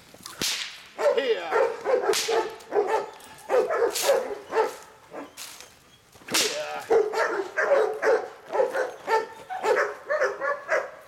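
Dog barking in quick repeated runs, worked up by a rag being waved and tugged in front of it in rag work.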